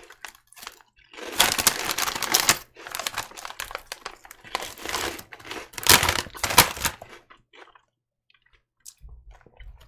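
Plastic snack-chip bag crinkling in several bursts as it is handled, going quiet about seven seconds in.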